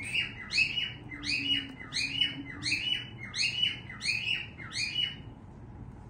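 Lovebird calling: a regular run of sharp, high chirps, about two a second, that stops about five seconds in.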